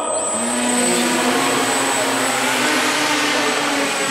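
Motors and propellers of several radio-controlled flying model trucks running together: a steady buzzing whine at several pitches at once.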